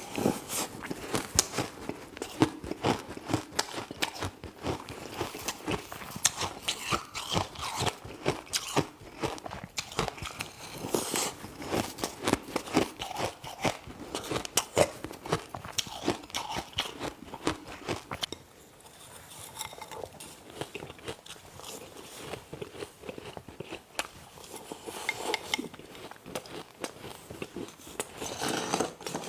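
Close-up crunching of ice being bitten and chewed, a dense run of sharp, irregular cracks. It eases to quieter chewing for a few seconds about two-thirds of the way through, then the crunching picks up again.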